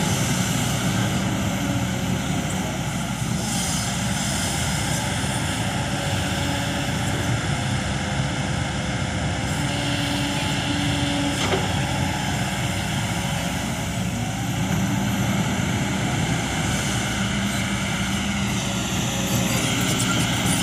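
Kobelco SK200-8 hydraulic excavator's diesel engine running steadily under load as it digs and swings a bucket of soil over to a dump truck, with a brief dip in pitch near the end.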